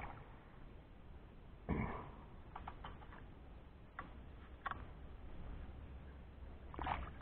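A hooked largemouth bass splashing at the water's surface beside a kayak as it is landed: two short splashy bursts, about two seconds in and near the end, with a few soft clicks between.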